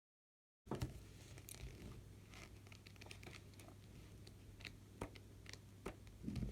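Small handling noises after a moment of dead silence: light rustling, crinkling and scattered clicks over a steady low hum, with a soft thump near the end.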